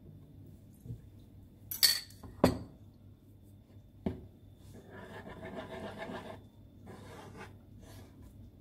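A fork stirring and scraping in a well of flour on a wooden pastry board as yeast dissolved in water is worked into the eggs. There are two loud sharp clinks about two seconds in and a lighter one about four seconds in, followed by a scratchy stretch of stirring through the middle.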